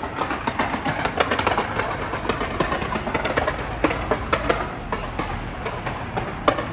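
Fireworks going off in a rapid, irregular string of pops and bangs over a steady rumble, with a louder bang near the end.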